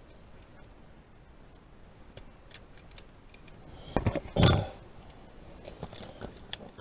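Light clicking and rustling of hand tools and wires being handled during wire splicing, with two louder knocks about four seconds in.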